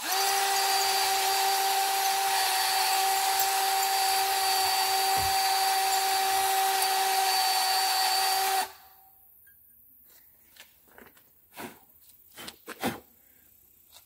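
HART cordless drill running at a steady speed with a 6 mm bit, reaming the hexagon-shaped hole of a screen-door hinge clamped in a vise out to a round one. It runs for about nine seconds at a steady pitch and stops abruptly, followed by a few light taps.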